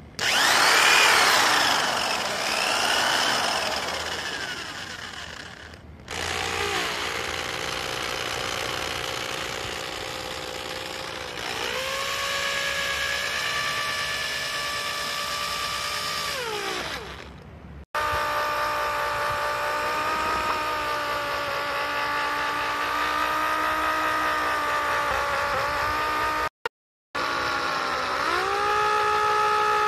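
Electric hand drill fitted with a cage paddle mixing rod, its motor whining as it spins and stirs thick white waterproofing coating in a plastic bucket. The pitch rises and falls with the trigger speed, in several runs broken by sudden cuts.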